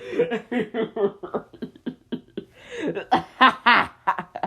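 Wheezing laughter: a voice laughing in quick breathy pulses, rising into a louder, higher, wavering cackle about three seconds in.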